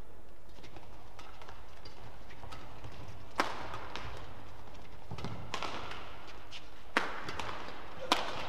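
Badminton rally: sharp cracks of rackets striking the shuttlecock, with lighter hits between them. The three loudest come about three and a half seconds in, at about seven seconds, and near the end, the last an overhead smash. A steady low hum of the hall lies underneath.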